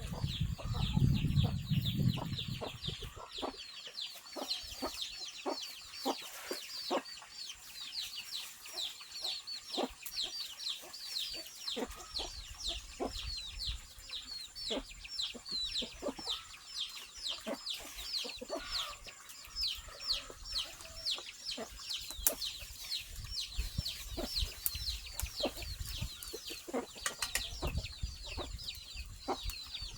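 Chickens clucking and cheeping: a dense, steady run of short, high, falling chirps with scattered soft taps. There is a low rumble in the first few seconds.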